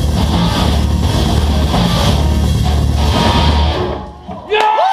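Live heavy rock band playing loud with distorted guitars and drums, cutting off about four seconds in. Just before the end, loud held shouting from the crowd takes over.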